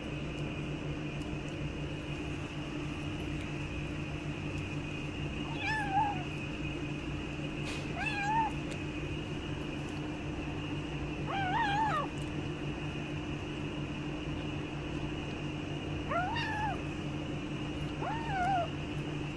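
Kitten mewing: five short, high, arching mews a couple of seconds apart, over a steady low background hum.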